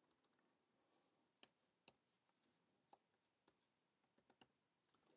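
Near silence with faint computer keyboard keystrokes: about a dozen single, sharp clicks at uneven intervals, a few in quick succession near the end.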